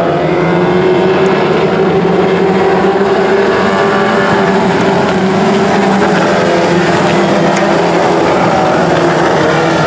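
A pack of Micro 600 sprint cars racing on a dirt oval, their 600 cc motorcycle engines held at high revs in a loud, steady, blended engine note.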